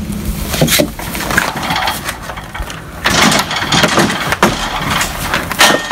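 Homemade wooden trebuchet firing: the release is pulled and the arm swings over, the wooden frame and trailer knocking and clattering several times, with a louder rush about three seconds in. The sling lets go of the rock late.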